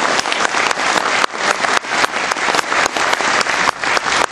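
Audience applause: many people clapping together.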